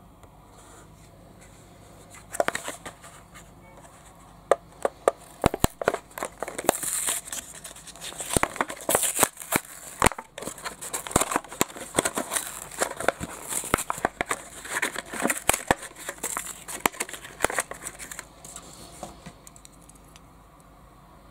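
Hot Wheels blister pack being torn open by hand: cardboard backing card ripping and plastic blister crinkling. It comes as a dense run of sharp crackles and tears that starts about two seconds in and dies away a couple of seconds before the end.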